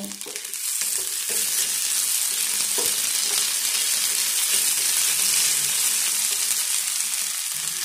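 Sliced potatoes and onions sizzling in hot oil in a non-stick frying pan while a spatula stirs them around. The sizzle is a steady hiss that gets louder about a second in as the pieces are turned over.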